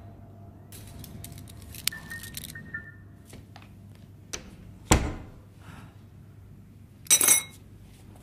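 A bunch of keys jangling and clicking at a door for a couple of seconds, a single heavy thump about five seconds in, and a short bright metallic jangle a little after seven seconds.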